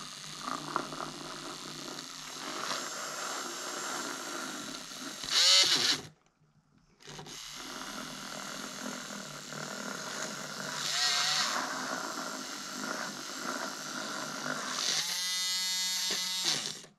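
Handheld milk frother's small electric motor whirring as its whisk spins in oil and melted beeswax in a glass jar, emulsifying it into a salve. It stops for about a second some six seconds in, then starts again. Near the end its pitch wavers and it cuts off suddenly.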